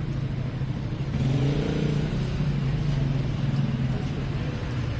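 A motor vehicle passing close on the street, its engine swelling louder about a second in, over a steady background of traffic hum.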